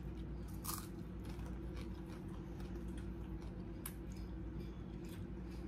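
Close-up eating sounds: crunching and chewing on crispy fried dried fish (tuyo) and hand-eaten rice, with a few sharp crunches, the loudest about a second in. A steady low hum runs underneath.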